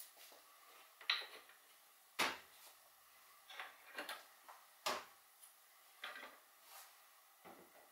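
Light, irregular knocks and clicks from hands handling small parts against a milled wooden board and the printer. The sharpest come about one and two seconds in.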